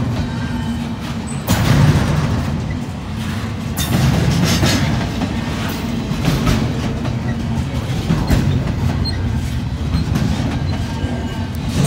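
Double-stack container train's well cars rolling past on the rails: a steady rumble with sharp clacks from the wheels every so often.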